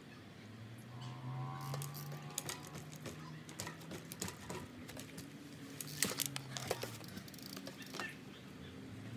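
Mountain bike clattering on a plywood-topped pallet platform: a run of clicks and knocks as the wheels are lifted onto and come off the wooden box, loudest about six seconds in. A low steady hum sits underneath.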